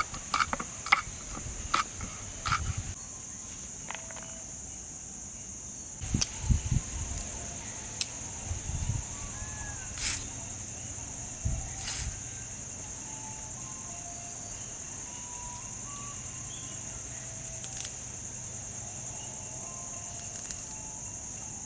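Continuous high-pitched insect drone, with scattered sharp knocks and taps, a quick run of them in the first few seconds and a few more later.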